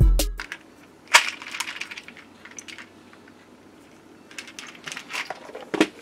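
Background hip-hop music cuts off in the first half-second. Then a plastic crimp-terminal organizer box and its loose terminals are handled, making scattered clicks and rattles: a sharp click about a second in, a pause, and another run of clicks near the end.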